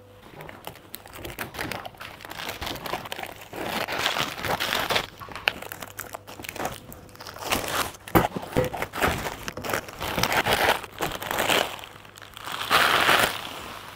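Clear plastic packing sheet being pulled off and crumpled up by hand, in irregular bursts of crinkling and rustling. It is loudest near the end, as the sheet is balled up.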